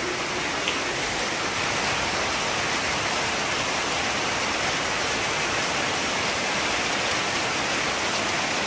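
Heavy tropical-storm rain pouring steadily onto a flooded concrete yard, with a stream of roof runoff splashing into a water-filled basin.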